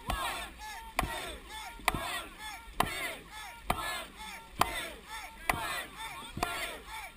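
Dragon boat crew paddling in unison: a sharp knock on each stroke, about once a second, with water splashing and dripping off the paddles in between.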